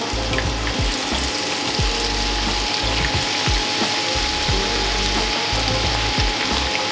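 Battered apple slices deep-frying in oil at about 180 °C: a steady, dense sizzle as the slices go into the hot oil one by one.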